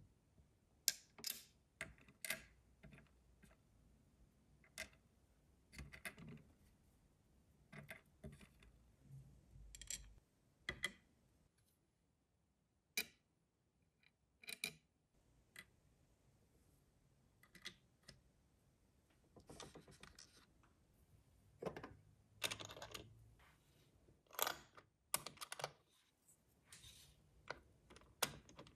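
Small plastic and tin miniature kitchen pieces clicking and tapping as they are set down and fitted together on a toy table and counter. The light clicks come irregularly, singly or in quick little clusters, with short quiet gaps between.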